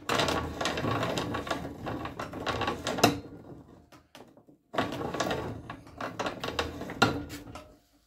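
A reamer cutting inside a rifle barrel's bore, the rod turned in two spells of about three seconds, each a fine scraping chatter that ends in a sharp click.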